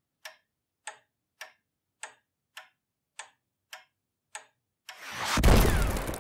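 Time-bomb sound effect: a clock ticks steadily, nine ticks a little over half a second apart. Then, about five seconds in, an explosion, a deep boom that swells quickly and dies away slowly.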